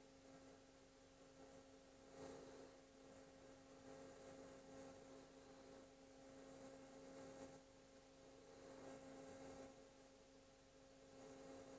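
Near silence with a faint steady hum from a TIG welding arc laying a hot pass on steel pipe.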